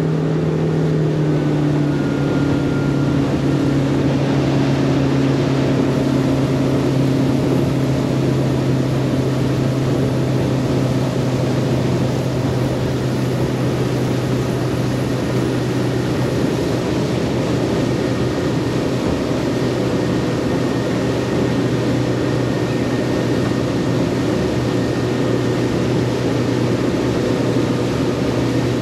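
Boat motor running under way, its pitch dropping a step about a second in, then holding steady over a constant rushing noise.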